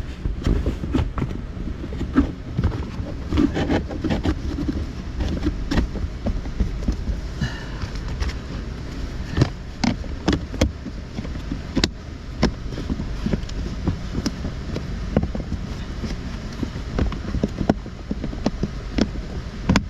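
Handling noises from a cabin air filter change under the dashboard: scattered plastic clicks, knocks and rustling as the old filter comes out and the new one is fitted, over a steady low rumble.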